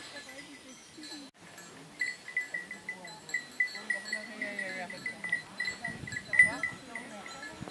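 Small livestock bells clinking in a quick, even run of about four strokes a second, with a few faint animal calls mixed in.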